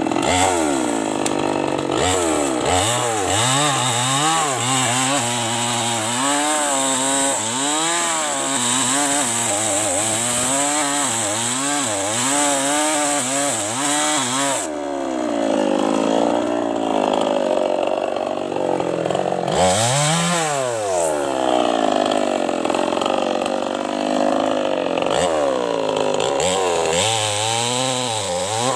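Small two-stroke chainsaw cutting into a tree trunk, its engine pitch swinging up and down about once a second as the chain bites into the wood and eases off. About two-thirds of the way through it gives one sharp rev.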